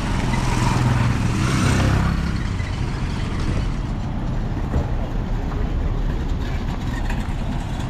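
Road traffic: a motor vehicle passes, its engine and tyre noise loudest about two seconds in and then fading, leaving a steady traffic rumble.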